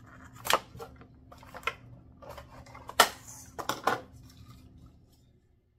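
Clicks and taps of small plastic parts and packaging being handled, about five distinct knocks with the loudest about three seconds in, over a faint steady hum that fades out near the end.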